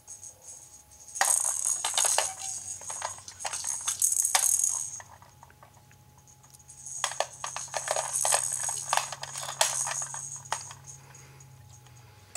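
A jingling rattle shaken in two bursts of a few seconds each, with a short pause between them.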